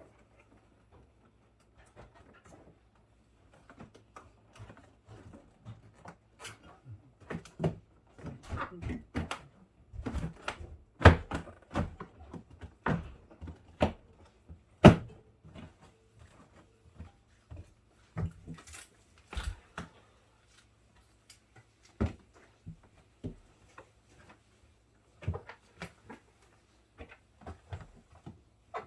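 Irregular clicks, knocks and plastic clatter as refrigerator interior parts are handled and fitted back into place during reassembly, with two sharper knocks about 11 and 15 seconds in.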